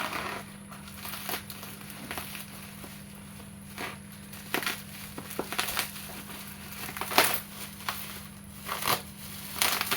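Tumbler packaging being opened by hand: irregular crinkling, crunching and rustling of the wrapping and box, with sharper crackles about seven and nine seconds in.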